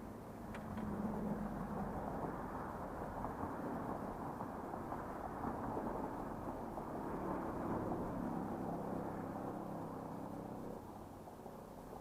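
A motor vehicle passing by: a steady engine-and-road noise that swells about a second in, holds, and fades near the end.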